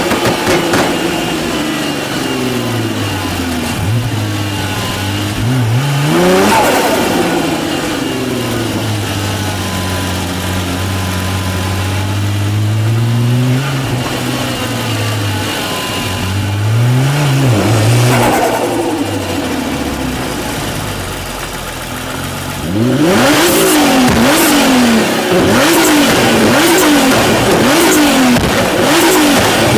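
Twin-turbo V6 of a tuned Nissan GT-R R35 under way, its note rising and falling as it accelerates and lets off, with sharp climbs in revs about a fifth of the way in and again past the middle. For the last quarter it is revved in quick repeated blips, about one a second, with sharp exhaust cracks over them.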